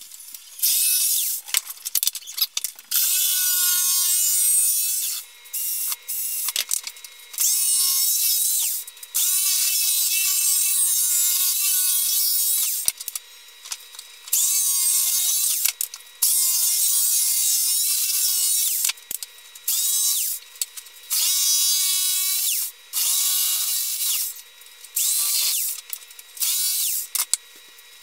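Corded jigsaw cutting a thin hardboard sheet in a string of short runs, its motor whine rising as each run starts and dropping as it stops, with brief pauses between runs.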